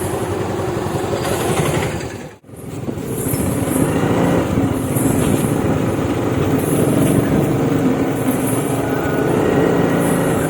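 A vehicle running on the road, with steady engine and road noise. The sound cuts out for an instant about two and a half seconds in.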